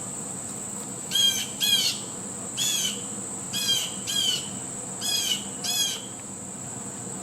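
Blue jay calling: seven short calls, mostly in pairs about half a second apart, over a steady high-pitched tone.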